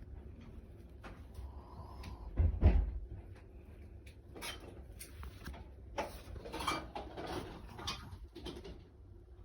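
A sleeping small pet dog snoring: a few rough, irregular snores a couple of seconds apart. The loudest and deepest comes about two and a half seconds in.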